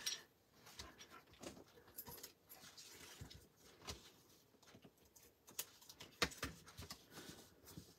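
Faint rustles and scattered light taps of cardstock being folded and pressed flat by hand, with a few sharper ticks in the second half.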